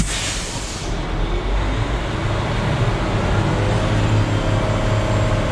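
Concrete mixer truck's diesel engine running, with a click and a short hiss right at the start. The engine hum grows louder and steadier about four seconds in.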